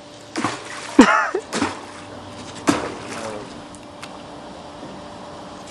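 A few short splashes and sloshes of water, with a brief voice sound about a second in.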